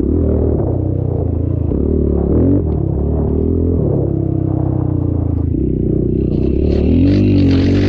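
Dirt bike engine running under changing throttle, its revs stepping up and down and then climbing near the end.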